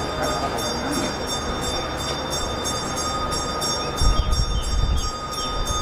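A steady mechanical drone with several high steady whining tones, and low rumbling bumps in the second half.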